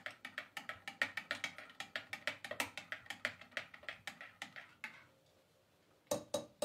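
A fast, even run of short sharp clicks, about seven a second, stops about five seconds in; after a second of silence, a few louder single clicks follow near the end.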